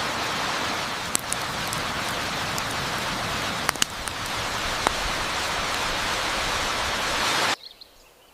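Waterfall rushing in a steady, full hiss, with a few sharp clicks on top. The sound cuts off abruptly near the end.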